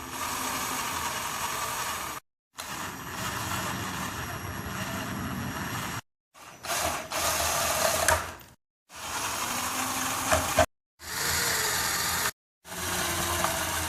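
Screws being backed out of a garage door opener's motor cover with a 5/16 socket driver, heard as about six short runs of steady mechanical whirring, each cut off abruptly.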